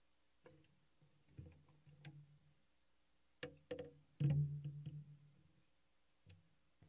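Acoustic guitar being handled, with a few quiet low notes plucked and let ring and small knocks on the body. The loudest note comes about four seconds in and rings for over a second.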